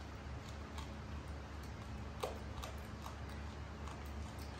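A young macaque monkey eating chicken and rice by hand from a plate: small irregular clicks and smacks, about two or three a second, with one louder click about two seconds in. A steady low hum runs underneath.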